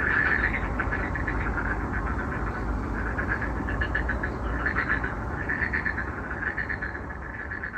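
A chorus of frogs calling at night: a dense run of rapid pulsing calls that swells and fades in waves, with a low rumble underneath. The calls sound like a monster.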